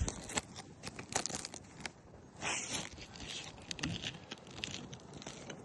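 Asphalt roof shingles being handled and pried up: irregular crackling, scraping and clicking, with a longer tearing rustle about two and a half seconds in.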